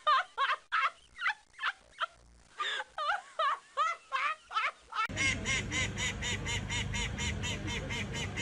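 A run of hooked, honking calls, about two or three a second; about five seconds in it cuts to a white domestic duck quacking rapidly, about five quacks a second.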